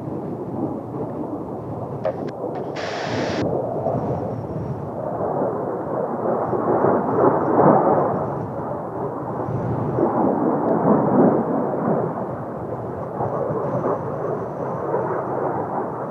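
Kawasaki T-4 jet engines rumbling as the Blue Impulse aircraft fly overhead, swelling about seven seconds in and again about ten seconds in, mixed with strong wind buffeting the microphone.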